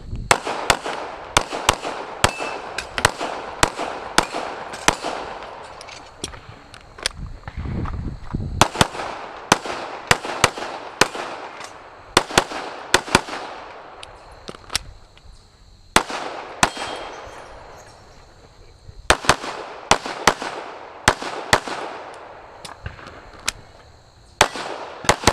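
Smith & Wesson M&P9 Pro 9mm pistol firing rapid strings of shots, mostly in quick pairs, with a few pauses of one to two seconds between strings: a timed practical-shooting course of fire.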